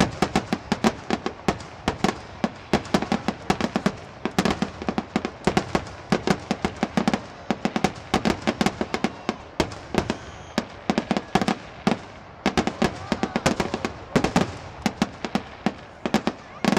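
Fireworks display in a rapid barrage: aerial shells bursting several times a second in sharp bangs and crackles, with hardly a gap between them.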